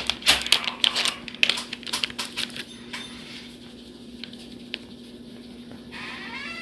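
Glitter shaker being shaken and tapped over the slime bowl: a quick run of small taps and rattles lasting about two and a half seconds, then only a faint steady hum.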